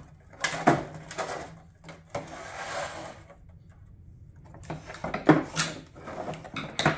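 A plastic car headlight housing and its removed lens are handled on a wooden workbench: several knocks, a scraping slide of about a second a little after two seconds in, then more knocks near the end.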